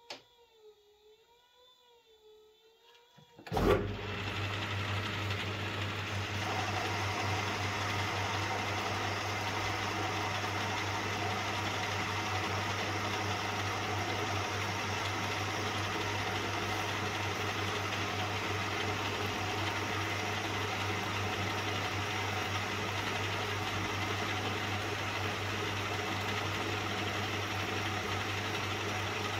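Old belt-driven metal lathe switched on about three and a half seconds in, starting with a sudden jolt and then running steadily with a low motor hum and a constant mechanical whir as it turns the axle stock.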